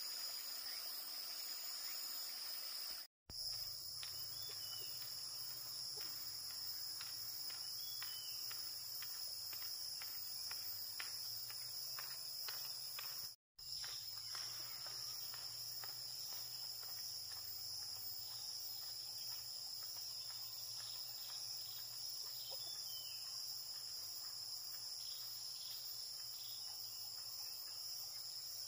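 Steady high-pitched chorus of insects, a continuous shrill drone that cuts out briefly twice.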